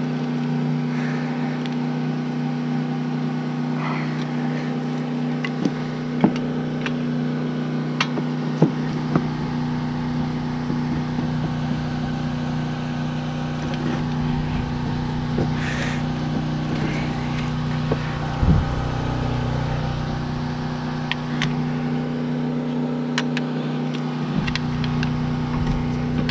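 A motor running steadily at a constant pitch, with scattered sharp clicks and knocks of hand tools on metal as the brake caliper is worked on.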